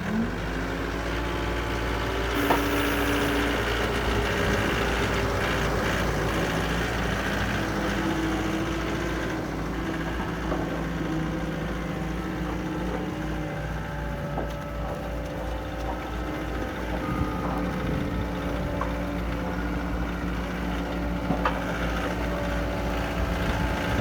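John Deere 332E skid steer's diesel engine running, rising in pitch right at the start and then running on with its pitch shifting a little, with a few clicks and knocks.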